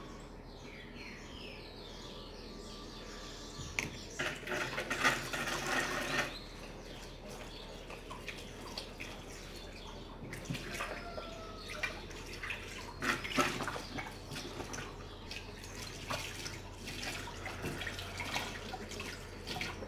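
Water running from a tap into a sink, with irregular splashing and dripping as something is washed by hand; the splashing comes in busier spells about four seconds in and again around thirteen seconds.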